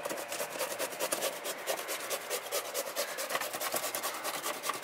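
Raw potato being grated by hand on a metal grater in a plastic bowl: quick, even rasping strokes, several a second.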